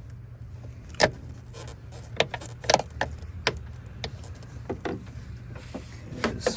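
Irregular sharp clicks and knocks of hard plastic intake parts and clips being worked loose on a car's air filter housing, over a steady low hum.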